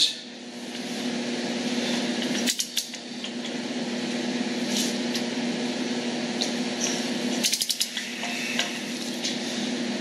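Torque wrench and socket tightening a Trail Gear chromoly spindle nut on a Toyota Land Cruiser 80-series front hub: scattered metal clicks and clinks, with a quick run of clicks about three-quarters of the way through. A steady low hum underlies it all.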